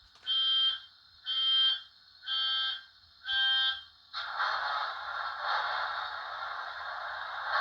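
Model locomotive sound decoder (ESU V4 in a Bachmann class 66) playing through its small double iPhone speaker: four electronic warning beeps about a second apart, then a steady rushing diesel sound starts about four seconds in.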